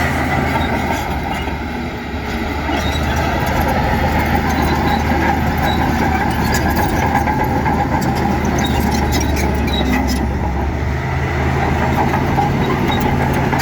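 Heavy diesel earthmoving machinery running steadily: a deep engine hum under a dense rumble, with scattered sharp clanks and ticks.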